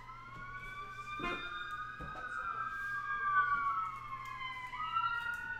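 Emergency vehicle siren wailing, its pitch slowly rising, falling, and beginning to rise again near the end. A couple of soft knocks from cards being handled come about a second and two seconds in.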